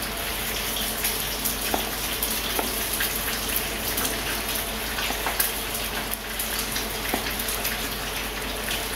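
A steady rushing hiss, with a few faint crisp clicks of a kitchen knife cutting through a green bell pepper held in the hand.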